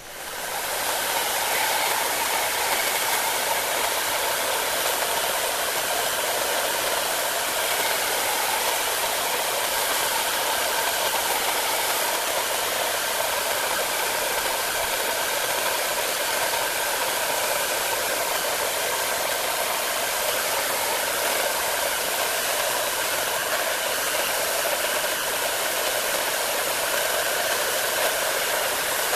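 Heat gun blowing hot air in a steady rush, coming up to full strength within about the first second, used to dry mineral spirits off a paper fretwork pattern.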